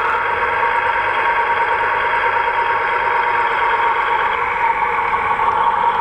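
Diesel railcar engine sound from a 00 gauge model diesel multiple unit's sound decoder, a steady drone as the two-car unit moves slowly off.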